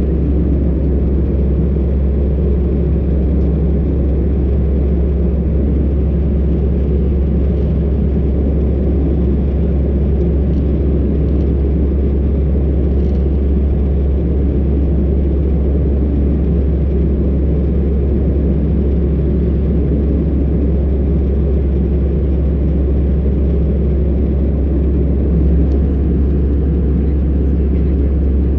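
Steady low rumble of cabin noise aboard an Airbus A320 in flight: engine drone and airflow, even and unchanging.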